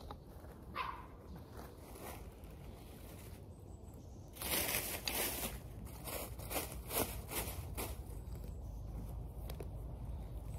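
Rustling and crackling of snowdrop foliage and leaf litter as clumps of snowdrops are handled and pulled apart. It starts about halfway through with a burst of rustle, followed by several short, sharp crackles.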